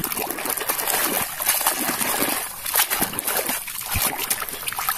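Muddy water sloshing and splashing in uneven surges as a hand swishes a plastic toy through it to wash off the mud.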